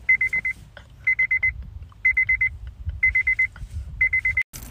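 Electronic beeper sounding quick runs of high, even beeps, one run about every second, like a digital alarm clock or warning chime, over a low rumble. It stops abruptly near the end.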